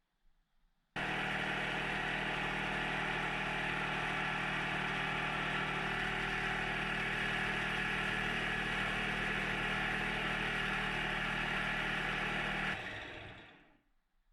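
Lathe running steadily with a hum and a broad hiss, switched off near the end and winding down.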